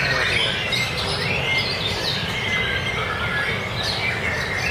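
Caged white-rumped shamas (murai batu) singing over one another in dense, overlapping whistled phrases, over a steady low rumble.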